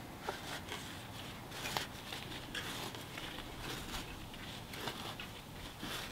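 Tire levers prying a 26-inch knobby bicycle tire's bead off the rim: scattered scraping and crackling of rubber against the rim, with small clicks from the levers.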